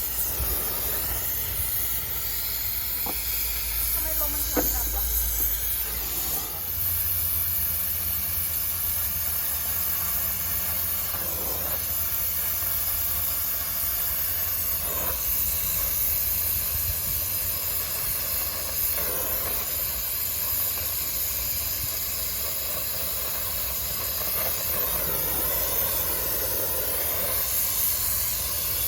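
Gas-welding torch burning with a steady hiss while filling a hole in a motorcycle crankcase.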